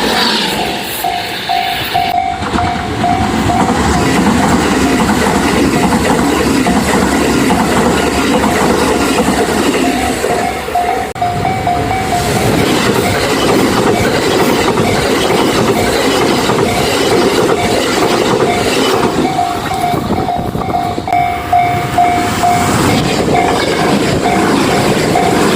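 A train passing over a Japanese railway level crossing, wheels clattering over the rails. The crossing's warning bell rings in a rapid repeating tone through it, loudest in the first seconds and again near the end.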